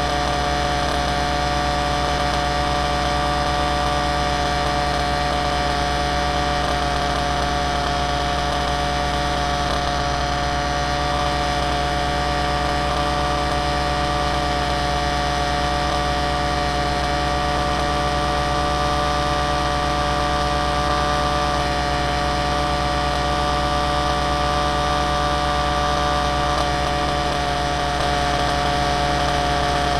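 Motor and propeller of a flying aircraft running at a steady, unchanging speed: a constant whine with a low buzz beneath it, picked up close by the onboard camera.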